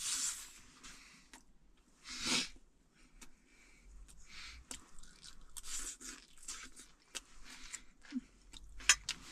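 A person eating steamed rice: soft chewing and mouth noises with scattered light clicks, the sharpest click near the end.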